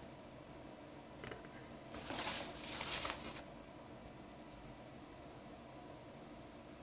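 Crickets chirping steadily in the background: an even, high pulsing trill repeating about one and a half times a second. Two short bursts of hiss come about two and three seconds in.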